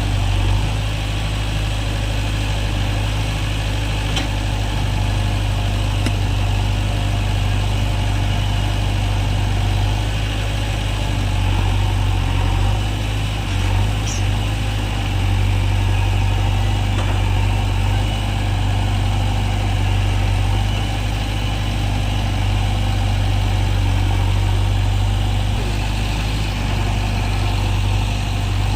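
JCB backhoe loader's diesel engine running steadily at low speed, with slight rises and falls in level.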